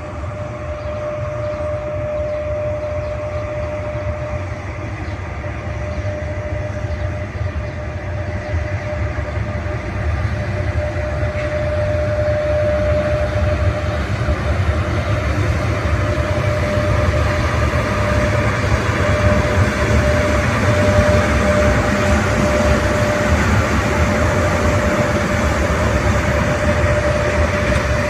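Passenger train running along the track, a steady rumble of wheels and cars with a steady high whine over it, growing louder from about eight seconds in.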